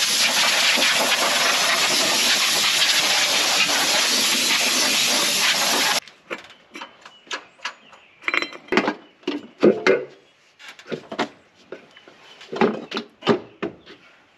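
A loud, steady hiss for about six seconds that stops abruptly, followed by a run of small metallic clicks, knocks and rustles as the air cleaner is unfastened and lifted off the carburetor of a Ford 302 V8.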